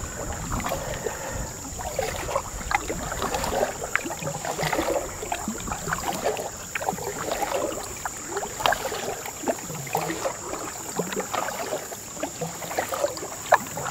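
Paddling a canoe on calm water: the paddle dipping and pulling, with splashes, drips and small sharp clicks, over a steady high-pitched whine.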